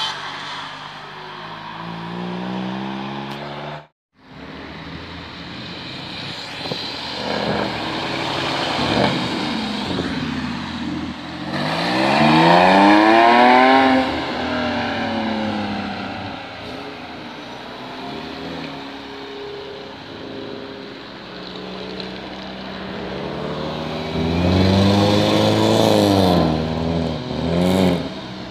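Cars driving off one after another, their engines revving up and down as they pull away and pass close by, loudest about twelve seconds in and again near the end. The sound cuts out briefly about four seconds in.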